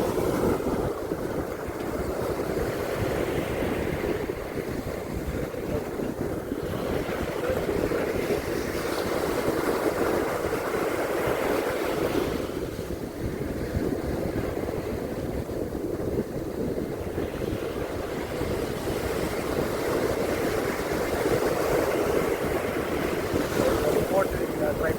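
Ocean surf washing onto a beach: a continuous rush of water that swells and eases every several seconds.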